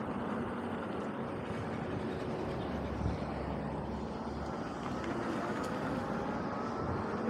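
Electric mountain bike with a 52 V 3000 W conversion kit riding on pavement: steady tyre and wind noise, with a faint motor whine that rises in pitch over the last couple of seconds as the bike picks up speed.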